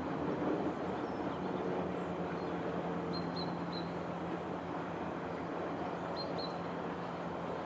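Steady outdoor rushing background with a low hum through it. Over it a small bird gives short, high chirps, often in pairs, every second or two.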